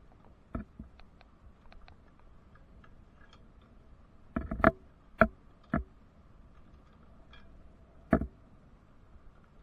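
A handful of sharp knocks and clicks at uneven intervals over a faint background, with the loudest in a group a little before halfway through and one more near the end.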